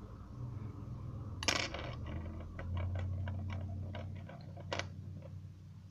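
Small metallic clicks and taps of steel tweezers working on a hand-wound ETA 2512 watch movement in its holder. A sharp click comes about a second and a half in, then a run of lighter, irregular clicks, and another sharp click near the end, over a steady low hum.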